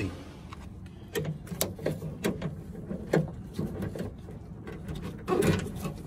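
Irregular light clicks and knocks of a car trunk latch and its parts being handled with gloved hands, with a louder clatter about five seconds in.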